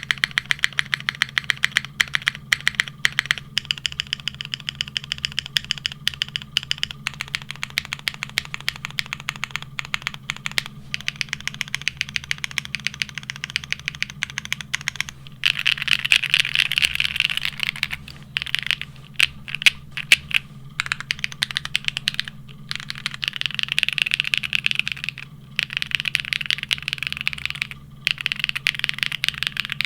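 Continuous fast typing on a Neo65 mechanical keyboard fitted with JTK ABS keycaps: a steady stream of crisp keystroke clacks, turning denser and busier in stretches in the second half. A faint steady low hum sits underneath.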